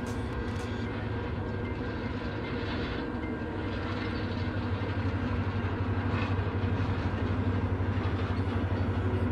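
Diesel locomotives hauling a long iron ore freight train, a steady low engine drone that grows slowly louder.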